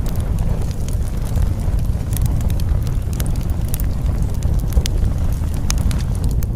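Crackling fire: a steady low rumble with many scattered sharp crackles and pops.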